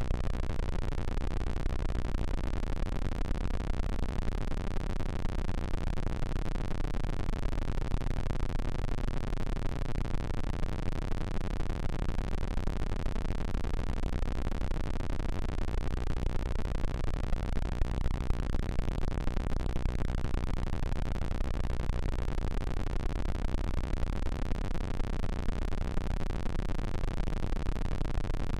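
Earrape sound effect: a harsh, distorted static-like noise with a heavy low hum, held steady without a break.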